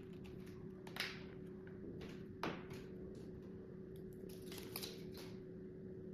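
Light clicks and taps of smart-lock parts being handled and fitted, a sharp click about a second in and a louder one near two and a half seconds, then a quick cluster of small clicks, over a steady faint hum.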